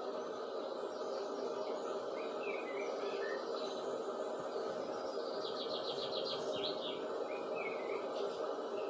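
Small birds chirping, with a quick run of rapidly repeated notes a little past the middle, over steady background noise.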